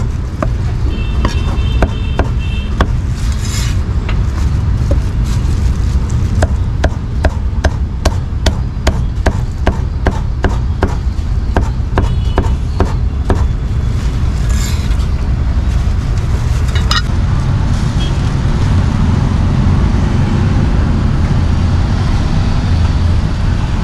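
Meat cleaver chopping cooked meat on a round wooden chopping block: a run of sharp, quick repeated knocks that stops about two-thirds of the way through. Steady street traffic rumbles underneath and is left alone after the chopping ends.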